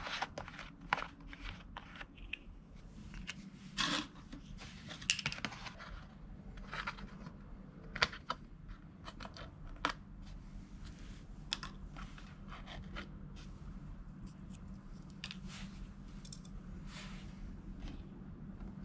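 Plastic cap unscrewed from a 5-quart jug of motor oil and the foil seal under it torn away: a run of irregular crackles, scrapes and clicks, busiest in the first half, over a steady low hum.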